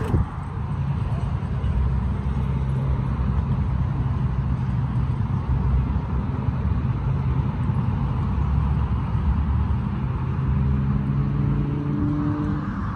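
Steady rumble of road traffic, with a passing engine's rising tone near the end. A single thump right at the start.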